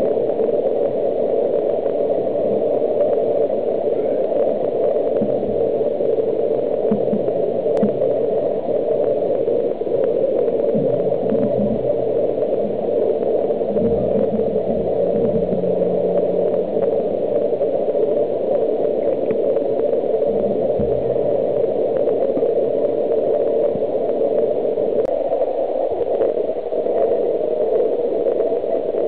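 Steady, loud rushing noise without breaks, with a faint low hum that comes and goes in the middle.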